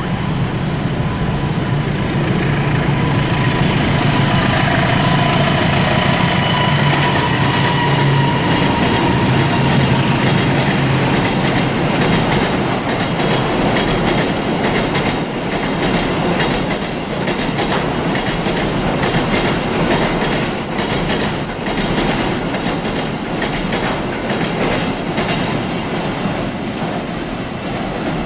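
Diesel locomotive hauling a container freight train past: a low engine drone with thin high wheel squeal as it rounds the curve in the first part, then the steady rhythmic clatter of the wagons' wheels over rail joints as the container flat wagons roll by.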